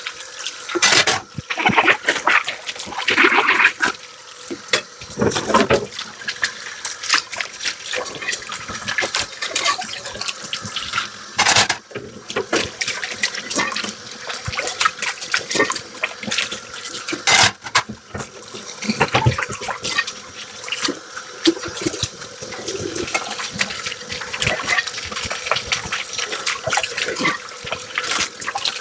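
Tap water running and splashing into a kitchen sink, with frequent short clinks and knocks of dishes being handled and rinsed.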